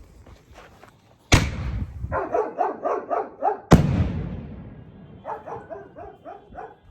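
A 4-inch salute firework shell launching from its mortar with a sharp thump, then bursting about two and a half seconds later in a single very loud bang that rumbles away for a couple of seconds. Dogs bark in quick runs between the launch and the burst and again after it.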